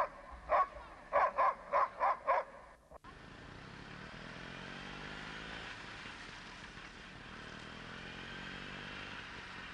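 A dog yipping excitedly, about seven sharp yips in quick succession in the first two and a half seconds. Then the sound cuts, and a steady motor-like drone follows with a faintly wavering pitch.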